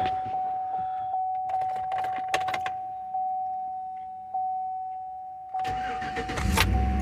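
A steady warning chime with a few clicks, then about six seconds in the Chevy truck's starter cranks and the engine catches and runs: the first start on its newly installed fuel pump.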